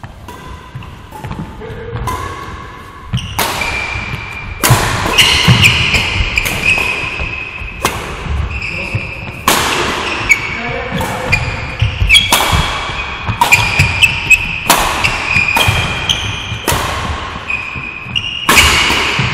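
Badminton rally: rackets smacking the shuttlecock about once a second, each sharp hit ringing in the hall, with short squeaks of court shoes on the floor in between.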